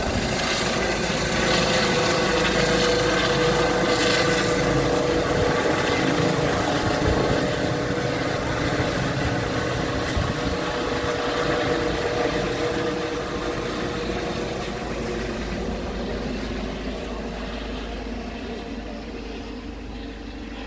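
Trauma helicopter climbing away and flying off, its rotor and turbine sound steady at first, then fading steadily over the second half as it gets farther away.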